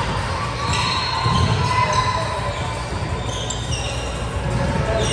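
Basketball game noise in a gym: a ball bouncing on the court with dull thuds, over a steady din with short high squeaks and background voices.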